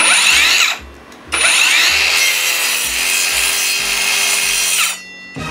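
Akaido AKCS125BL 5-inch brushless cordless circular saw starting up and running for under a second, stopping briefly, then starting again and cutting into an 18 mm rubberwood board for about three and a half seconds before it stops. The cut jams because the saw's motor housing catches on the speed square.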